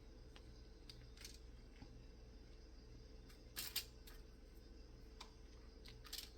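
Near silence over a steady low hum, broken by a few small clicks and light handling sounds; the loudest is a quick double click about three and a half seconds in, with another click near the end.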